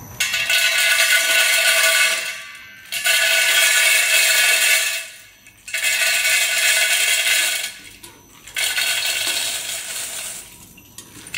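Multihead weigher's stainless steel vibratory feeders running with small biscuits clattering across the metal pans. It comes as four runs of about two seconds each, with short pauses between them, and a faint steady hum under the rattle.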